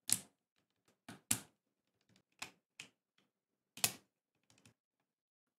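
About seven sharp plastic clicks at irregular intervals, three of them louder: parts being snapped into a Glorious GMMK Pro mechanical keyboard during assembly.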